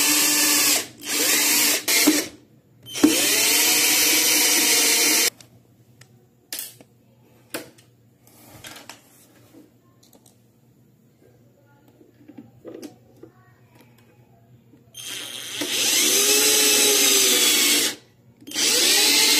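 Cordless drill driving screws into an aluminium angle bracket. There are five runs of one to three seconds, the motor's pitch rising and falling within each, with a long quiet stretch of small clicks and handling noises in the middle.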